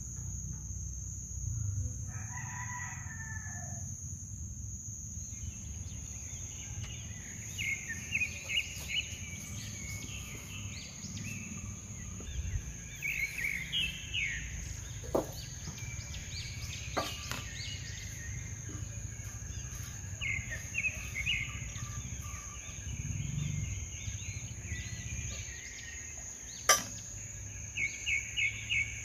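A rooster crows once, about two seconds in, over a steady high insect drone. Later, birds chirp in short runs of quick high notes, and there are a few sharp clicks, the loudest near the end.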